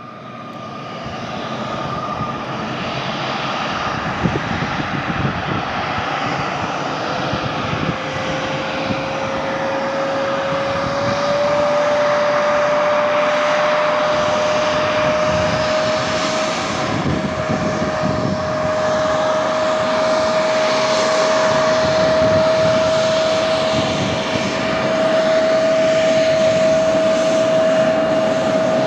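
Bombardier CRJ900 regional jet's two rear-mounted General Electric CF34 turbofans running at taxi power as it rolls past, the rushing jet noise growing louder over the first few seconds. From about seven seconds in, a steady engine whine comes through and slowly rises a little in pitch.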